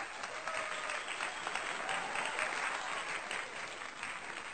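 Steady applause from a crowd, many hands clapping at once.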